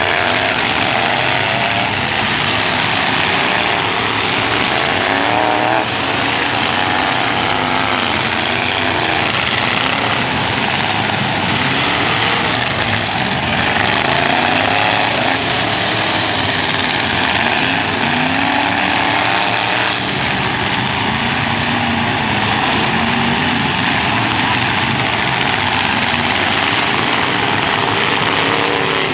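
Several demolition derby cars' engines running and revving together, loud and unbroken, their pitch rising and falling over and over as they accelerate and back off.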